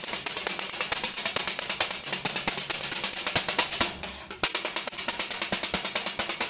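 Two steel kottu blades chopping rapidly on a flat steel griddle: a fast, drum-like clatter of metal on metal at about ten strokes a second. It breaks off briefly a little past halfway while the chopped roti is scraped together, then starts again.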